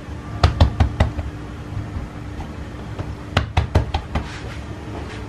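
Hands patting and pressing a folded murtabak dough parcel on a silicone pastry mat: two quick runs of sharp taps, about half a second in and again about three and a half seconds in, over a steady low hum.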